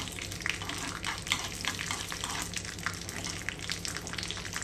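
Mustard and fenugreek seeds sizzling in hot coconut oil in a small pan, with frequent irregular crackles as the mustard seeds begin to pop, and a metal spoon stirring them around the pan.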